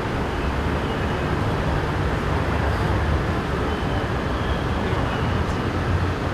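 Steady vehicle and traffic noise: a dense, unbroken hiss with a low engine hum underneath.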